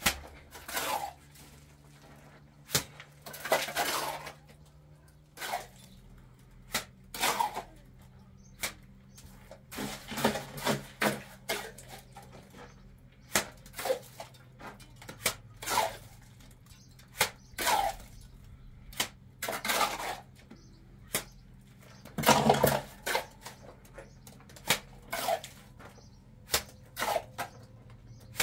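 Irregular clinks, taps and scrapes of a mason's hand tools working cement, mostly short and sharp with a few longer scrapes, over a low steady hum.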